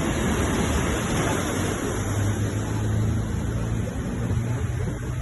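Sea waves washing in a steady surf noise, with a low steady hum underneath from about two seconds in.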